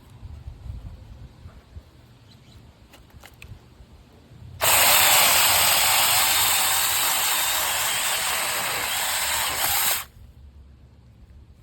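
Saker 6-inch cordless electric mini chainsaw running for about five seconds: it starts suddenly about halfway in, holds steady with a slight drop in level, and stops abruptly.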